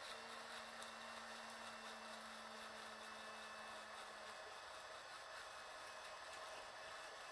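Waring immersion (stick) blender running steadily, a faint even whir, as it emulsifies olive oil into lemon juice and Dijon mustard for a vinaigrette. A faint low tone drops out about four seconds in.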